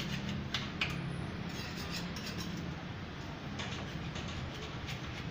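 Hand scraper scratching old paint off a steel gate in short, irregular strokes, over a steady low hum.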